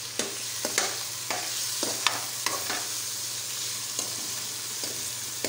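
Cubes of boneless chicken sizzling in hot oil in a metal karahi, browning. A steel spoon scrapes and clicks against the pan as they are stirred, a stroke about every half second.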